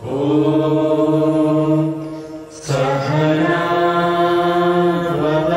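A group of voices singing a slow devotional chant together, holding long notes, with a pause for breath about two and a half seconds in.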